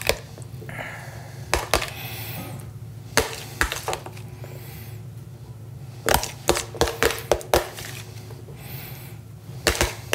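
Spoon clinking and tapping against glass tumblers as diced mango salad is spooned into them, in scattered sharp clicks with a busy run of them about six to eight seconds in and again near the end, over a steady low hum.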